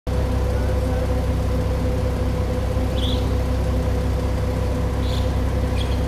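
A steady low mechanical hum with a constant whining tone runs throughout, like an engine or machinery running. A few short, high chirps, likely from a myna, come about three seconds and five seconds in.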